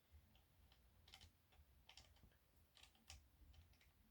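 Faint, scattered light clicks of small metal parts being handled: Floyd Rose string-lock blocks and a hex key knocking together while being fitted into the stud hole.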